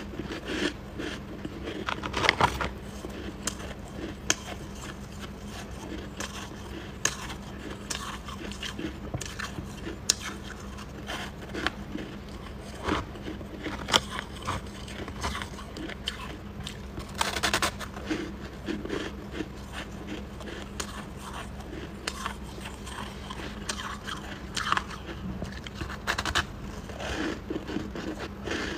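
Chunks of frost and shaved ice bitten, chewed and handled close to the microphone: irregular crisp crunches and scrapes, with a louder crunch now and then.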